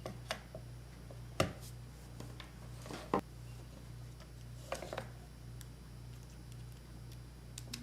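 A few sharp clicks and knocks of hard plastic as the phone-shaped iPhone handset stand is handled and a charger is fitted into its slot, over a steady low hum.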